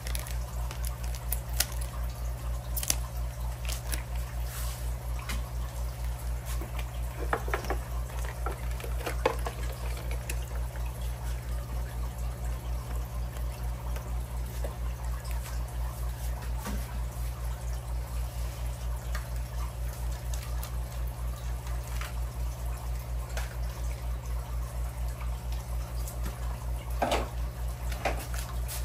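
Aquarium equipment running: a steady low hum with a fast, even pulse, with water trickling and dripping over it. A few brief rustles and knocks of plastic fish bags being handled, about seven to nine seconds in and again near the end.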